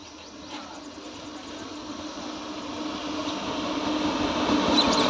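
WAP-7 electric locomotive hauling a passenger train on approach: a steady rumble of wheels on rail with a low steady hum, growing steadily louder as the train nears.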